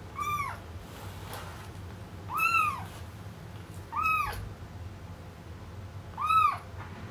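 Kitten meowing four times. Each meow is a short, high-pitched call that rises and falls.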